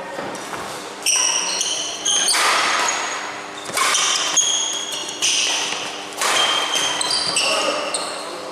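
Badminton doubles rally in an indoor hall: sharp racket strikes on the shuttlecock and short high squeaks of shoes on the court, about six loud moments in quick succession over a steady low hum.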